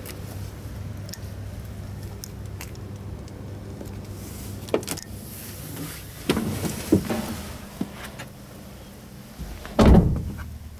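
Knocks, clicks and rustling as someone climbs into the rear crew cab of a Mercedes-Benz Sprinter van, with a heavy thump near the end, over a steady low hum.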